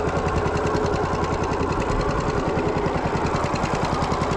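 Small boat engine running steadily with an even, rapid pulse.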